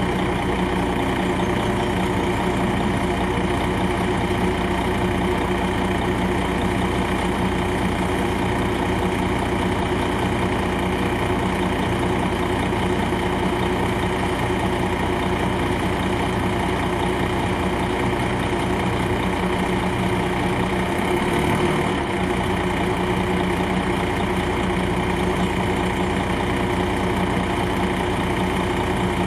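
A 2001 MCI D4000 coach's Detroit Diesel Series 60 inline-six diesel running at a steady engine speed, heard from inside the passenger cabin.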